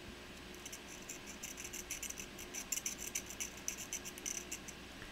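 A small metal tool scraping rapidly at a blackened soldering iron tip in many short, scratchy strokes, clearing the carbon coating so the tip will take solder again. The scraping starts about half a second in and stops shortly before the end.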